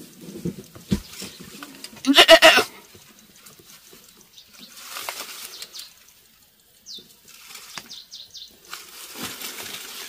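A goat bleats once, a loud wavering call about two seconds in; the goat is caught tangled in rope. Quieter rustling and a few clicks follow.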